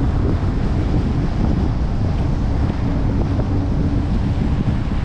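Steady wind rush buffeting a GoPro mounted outside a moving Dodge Challenger R/T, over the low sound of the car's 5.7-litre HEMI V8 and its tyres on the wet road.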